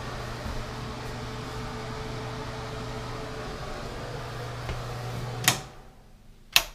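A steady low machine hum with a hiss cuts off abruptly with a sharp click about five and a half seconds in. Another sharp click follows about a second later.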